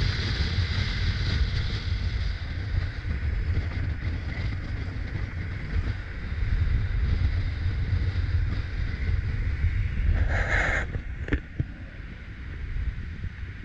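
Wind buffeting the microphone of a camera mounted on a moving car's roof, over a steady low road rumble. A brief burst of noise comes about ten seconds in, and the rumble drops off near the end.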